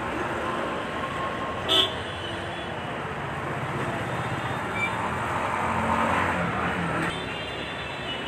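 Busy city street traffic din, with a short, loud horn toot about two seconds in and fainter horn tones near the end.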